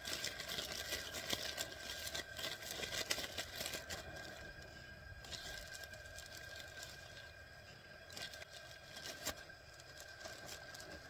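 A plastic zip-lock bag crinkling and rustling in the hands as pieces of fish are packed into it. The crackles come in clusters, busiest in the first few seconds and again about eight seconds in.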